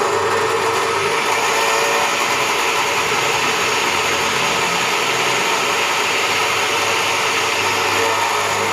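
Makita 14-inch cut-off saw running steadily at full speed with no load, its electric motor and abrasive disc giving an even, loud whine.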